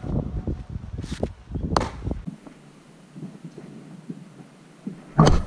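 Baseballs pitched into a catcher's mitt: a sharp pop about two seconds in and a louder, closer pop near the end, over outdoor rustle.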